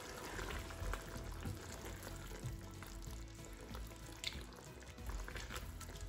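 Adobo in soy-and-orange-juice sauce sizzling and bubbling in a wok as it braises, with a few short clicks scattered through.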